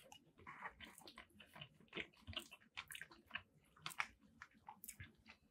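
Faint close-up chewing of a mouthful of poutine with gravy and cheese curds: soft, irregular wet clicks and smacks of the mouth, several a second.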